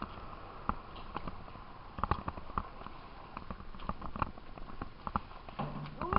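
Canoe paddling: irregular light knocks and clicks of paddles working the water and touching the canoe.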